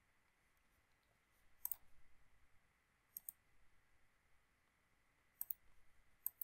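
Faint computer mouse clicks, four of them at uneven spacing, each a quick double snap of the button going down and coming back up.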